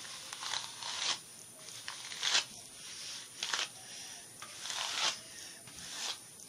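Hairbrush drawn through long hair: a series of dry, brushing swishes, about one stroke a second.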